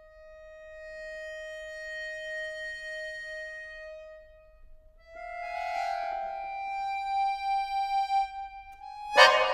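Solo classical accordion playing a contemporary piece: a long single held note swells and fades, then a higher note is held, wavering in loudness. Near the end a sudden loud accented chord cuts in.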